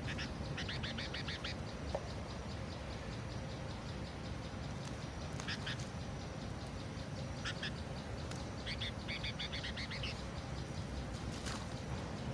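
Animal calls in four short bursts of rapid, chattering pulses, over a steady low background rumble.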